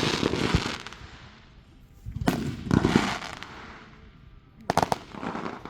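Fireworks going off in three bursts: one at the start, one a little after two seconds in and one near the end. Each is a cluster of sharp bangs and pops that trails off over about a second.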